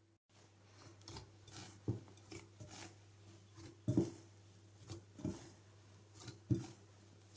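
Yeasted flour dough being kneaded by hand in a bowl: repeated rubbing and squishing, with four dull thumps as the dough is pressed down.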